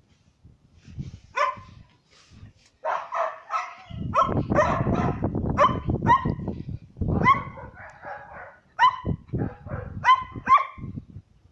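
A young dog barking and yipping in a series of about a dozen short, high-pitched barks, some in quick pairs.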